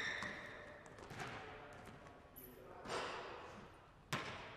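Faint sound of a one-on-one basketball game on an indoor hardwood court: a basketball bouncing, with a short squeak right at the start and a few sudden knocks spread through the rest.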